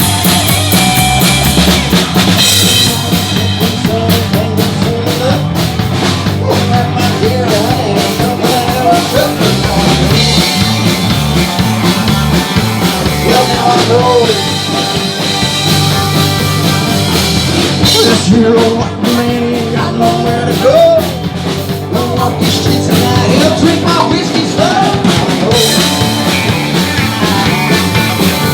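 Live rock band playing an instrumental passage, with drum kit and bends of a lead line over a steady low end.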